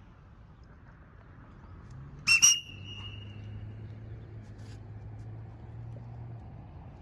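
A sharp double whistle about two seconds in, each note rising slightly and then trailing off into a thin fading tone: a recall whistle calling a free-flying pet bird back home.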